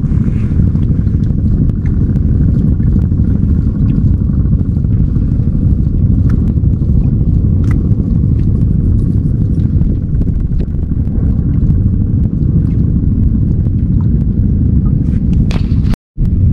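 Steady low rumble of wind buffeting the microphone, with a few faint clicks; it drops out for a moment near the end.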